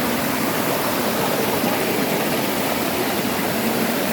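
Rushing water, a steady, even rush with no breaks.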